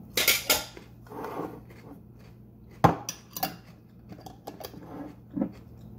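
Eating a crunchy baked-cheese tostada from a plate: a string of sharp crisp clicks and clatters. The loudest come about a quarter second in and just before three seconds in, with smaller clicks between them.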